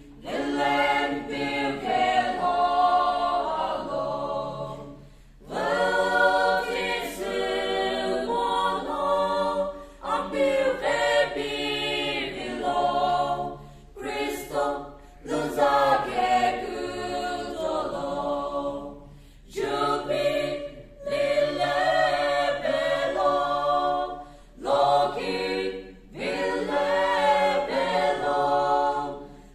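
Mixed choir of men's and women's voices singing a cappella, in phrases broken by short breaths about every four to five seconds.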